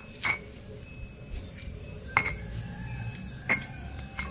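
Stone pestle knocking and grinding in a stone mortar (ulekan and cobek), mashing and stirring a stiff paste: four sharp stone-on-stone clinks at uneven intervals, with a low scraping between them.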